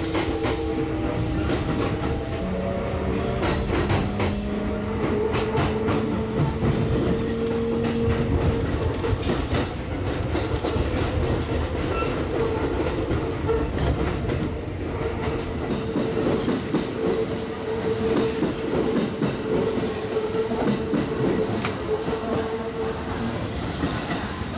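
Kintetsu electric train running and gaining speed over the points, seen from its driving cab. There is a steady electric whine that rises gently in pitch, under wheels clattering over rail joints and switches.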